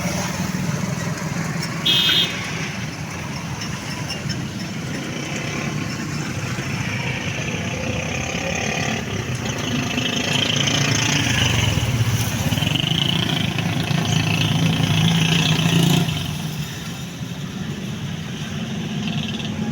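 Road traffic: vehicle engines running and passing steadily, with a brief loud high-pitched sound about two seconds in.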